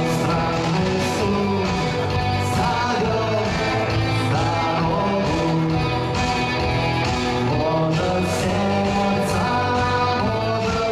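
Rock or pop music with guitar and a singing voice.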